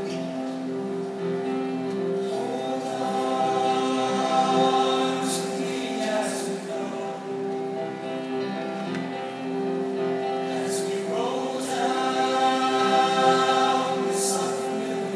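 A large choir singing together in held, sustained chords, swelling louder about two and a half seconds in and again about eleven seconds in.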